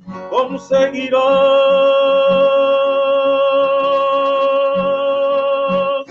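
Male voice singing the last word of a Spanish ballad, "conseguirás", and holding the final note steady for about five seconds over a soft guitar accompaniment. The song ends abruptly near the end.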